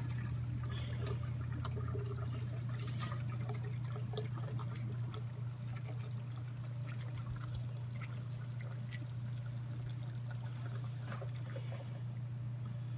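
Wort trickling out of a cooler mash tun's spigot as the mash is drained, over a steady low hum with a few faint clicks.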